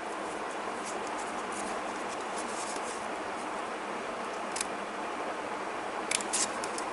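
Scissors snipping through layered paper: one short snip about halfway through, then two or three quick snips near the end, over a steady background hiss.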